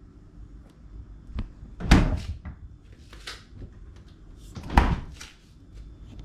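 Fridge being shut up: two solid knocks about three seconds apart, like a refrigerator door or drawer closing, with short scraping and rustling sounds between.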